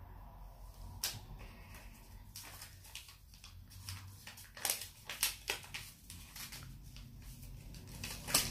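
Paper rustling with scattered light clicks and taps as a glue stick is handled and rubbed over a sheet of paper, a few short sounds clustered in the middle and one near the end.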